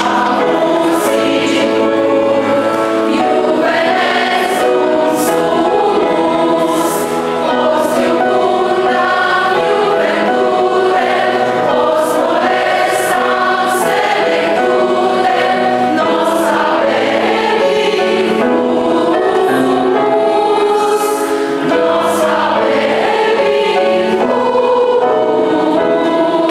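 A hall full of people, men and women together, singing a slow song in chorus with long held notes.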